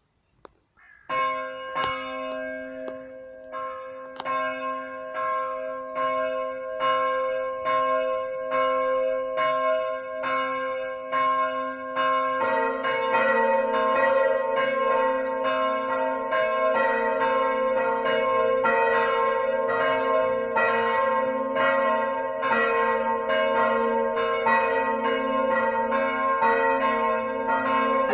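Swinging church bells of a four-bell ring starting up for the full peal. A single high-pitched bell begins about a second in and strikes steadily. About twelve seconds later a second, lower bell joins, its strokes interleaving with the first.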